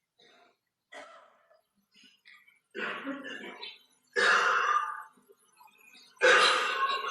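A person coughing and clearing their throat: three short, sudden bouts, the last the loudest.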